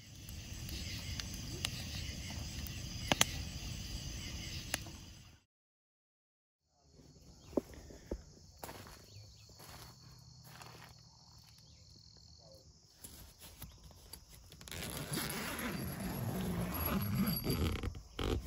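Wood campfire crackling with a few sharp pops. After a short silence, a tent's door zipper is drawn open near the end, a louder rasping.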